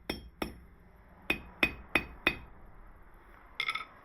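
Hammer tapping gold on steel while forging a ring: six sharp, ringing metal strikes, two close together at the start and then four evenly spaced about a third of a second apart. Near the end comes a brief metallic clinking rattle.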